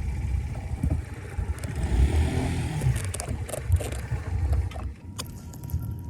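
Floodwater rushing and gurgling down a street drain: a loud low rumble with a few knocks, easing about five seconds in.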